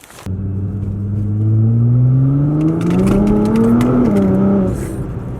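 Nissan GT-R R35 engine accelerating hard, its pitch rising steadily for about four seconds, then dropping sharply and easing off in level near the end.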